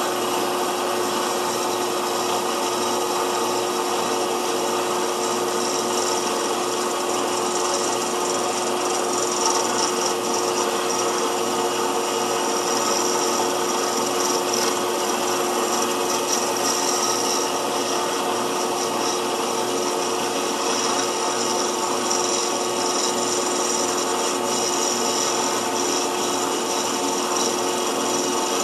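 Small metal lathe running with a steady hum while a hand-fed turning tool takes a pass along a bronze bar, a steady scraping hiss of the cut, turning the bar down from 3/8 to 11/32 inch.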